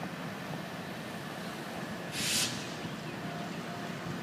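Steady low rumble of cars driving over a railroad grade crossing, with a short, sharp hiss about two seconds in.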